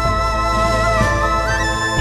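Background music: a slow melody over held chords and a steady bass, stepping up in pitch near the end.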